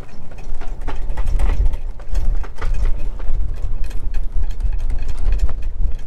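Wind buffeting the microphone on a catamaran sailing fast, with a rough low rumble and rushing water, broken by many irregular knocks and clatters.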